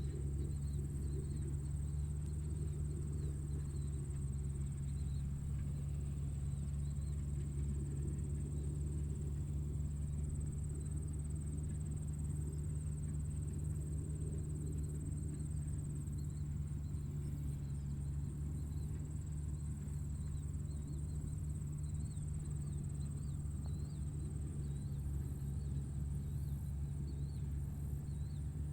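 Insects trilling steadily in one high, thin tone, over a steady low hum.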